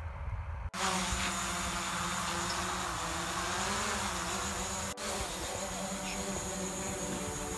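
Hubsan Zino quadcopter drone flying: its propellers make a steady buzz over a low hum, the pitch wavering slightly about halfway through. The sound starts abruptly under a second in and breaks off for an instant about five seconds in.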